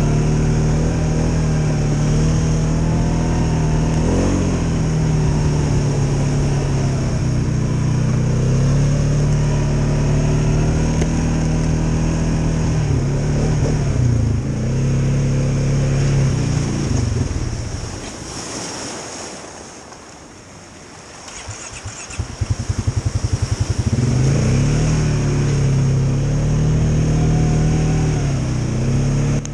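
2016 Polaris Sportsman 570 ATV's single-cylinder engine running under way, its pitch rising and falling with the throttle. About eighteen seconds in it drops to a quiet idle for a few seconds, then picks up with a quick putter and revs back up.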